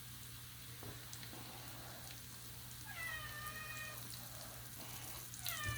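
Faint fizzing and crackling of a toy volcano's eruption mixture still bubbling over. About three seconds in there is one short high-pitched squeal, and near the end a second, falling one.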